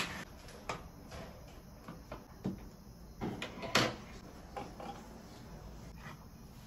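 Plastic detergent bottles and soft refill pouches being handled and set down on a countertop: scattered light knocks and rustles, the sharpest knock a little past the middle.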